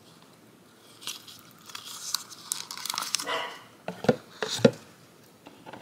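Crinkling and clicking as a clear plastic case of nail transfer foil rolls is handled, with two short, sharp, louder sounds a little after four seconds in.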